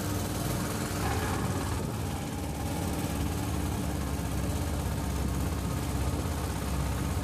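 Motorboat engine running steadily while under way, with the rush of water churned up in its wake.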